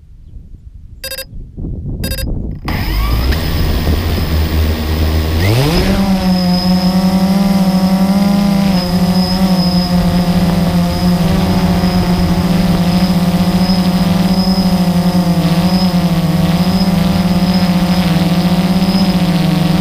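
Blade 350 QX2 quadcopter's electric motors and propellers heard from on board the craft: two short beeps, then the motors spin up at idle with a low hum. About five and a half seconds in, the pitch rises sharply as it throttles up and lifts off, settling into a loud, steady propeller buzz whose pitch wavers slightly as it climbs and flies.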